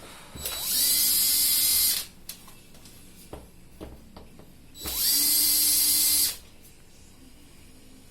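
Handheld power drill-driver run twice, about a second and a half each time. Each run spins up quickly to a steady high whir, then stops.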